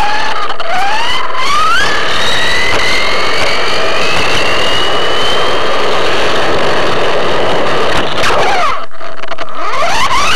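Battery-powered RC car's electric motor whining as it speeds up, the pitch climbing steadily for several seconds, falling away about eight and a half seconds in and climbing again near the end, over a loud rushing noise.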